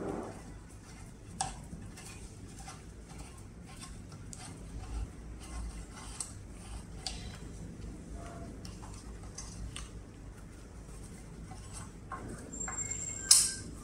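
Light metallic clicks and ticks of a screwdriver turning in a screw in an electric scooter's deck as the front axle screws are loosened, with a sharper click about a second and a half in and a loud sharp click near the end.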